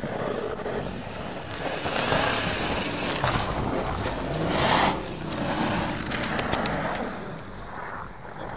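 Large 4x4 SUV's engine revving hard under load as its wheels spin through snow and sand, tyres throwing up grit with a hissing spray. The engine pitch rises and falls, peaking about halfway through, then eases as the vehicle pulls away.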